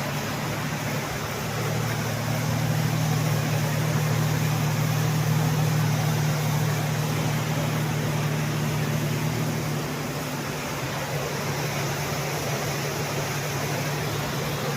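Jeep engine running at a steady pitch with road noise while driving, a little louder for several seconds after the first second or so.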